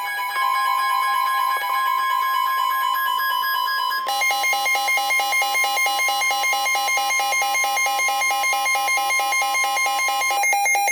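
Emergency Alert System attention signal: a steady two-tone electronic alert. About four seconds in it changes to a fast, regular pulsing beep.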